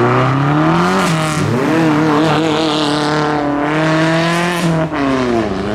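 A modified car's engine revving hard, its pitch climbing in steps, holding high for a few seconds, then falling near the end.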